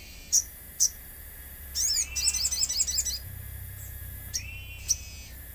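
Little spiderhunter (sogon) calling: two sharp high chips, then about two seconds in a rising note that breaks into a rapid trill of repeated high notes lasting about a second, and a couple more single chips near the end, over a steady faint background hum.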